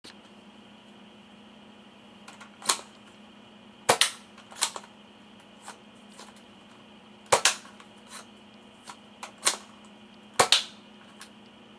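Toy gun shots: sharp single pops at irregular intervals, some in quick pairs, with a few fainter clicks between them, over a faint steady hum.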